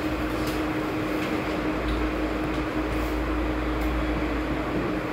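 Steady background noise: an even hiss with a low hum and a steady tone, and a few faint ticks.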